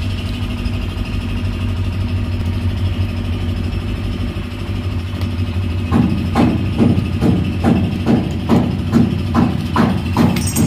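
Steady low mechanical hum. From about six seconds in, a regular run of strokes, about two and a half a second, from hand work on a lead battery terminal post.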